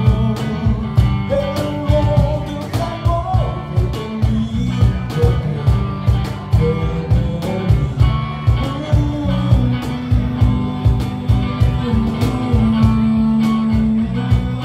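Small live band playing: a man singing lead over electric guitar and electric bass, with a cajón keeping a steady beat.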